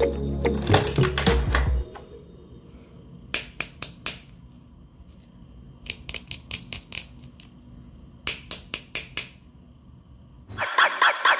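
Background music for about two seconds, then three short runs of quick, sharp clicking from plastic toys being handled, and the music comes back just before the end.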